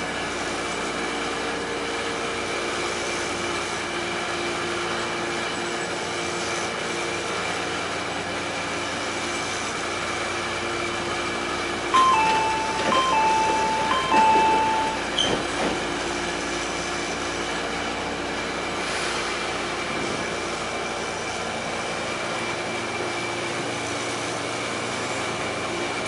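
Commuter train standing with a steady electrical hum. About halfway through, the door-closing chime sounds three times, each a short high note dropping to a longer lower one, as the doors shut.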